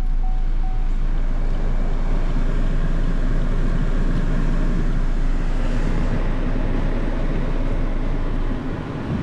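Steady running noise inside the cabin of a 2020 Chevrolet Malibu, with its 1.5-litre turbocharged four-cylinder idling and the climate-control fan blowing. A few short, evenly spaced dashboard chime beeps sound right at the start.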